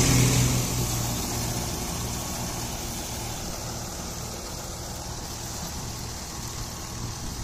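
Sonalika Sikander tractor engine running steadily while it powers a Dashmesh 517 straw reaper working through wheat stubble, the two machines heard together. The level falls sharply over the first second, then holds steady.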